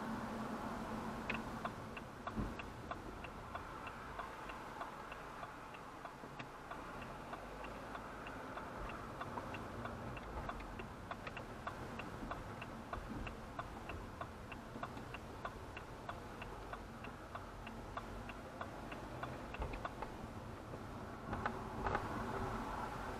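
Car turn-signal indicator ticking steadily inside the cabin, about two ticks a second, over the low, steady hum of the engine and road. There is a louder knock near the end.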